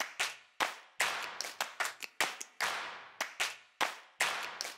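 Sharp hand claps in an uneven rhythm, about three or four a second, each with a short echoing tail.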